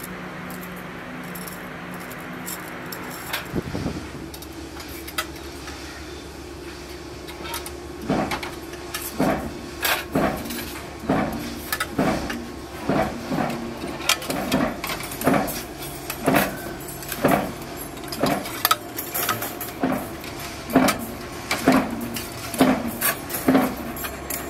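Thin stainless steel rods clanking and ringing against a steel bench bending jig and each other as they are bent by hand into hooked frames. The clanks come roughly once a second from about a third of the way in.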